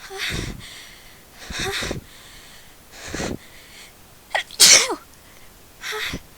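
A woman sneezing repeatedly: five short sneezes about a second and a half apart, the loudest about four and a half seconds in.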